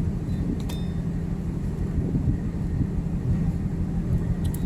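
Steady low rumble and hum of a ship's running machinery, with a couple of faint clicks.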